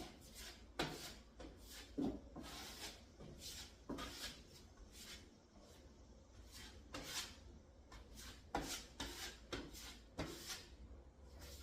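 Drywall taping knife scraping joint compound across sheetrock: about a dozen short, irregular rasping strokes as the mud is spread and smoothed.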